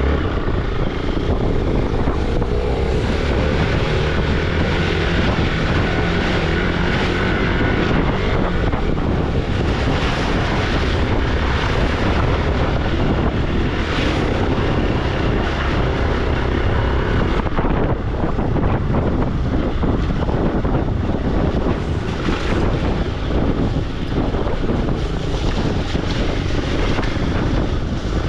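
Hero Xpulse 200 single-cylinder motorcycle engine running under way, with wind buffeting the microphone.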